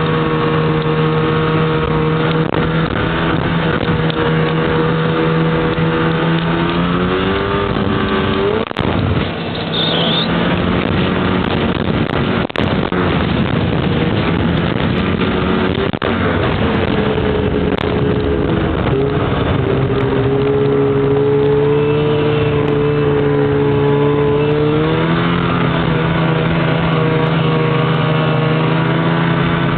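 Snowmobile engine running steadily at speed, its pitch rising and falling a few times as the throttle changes.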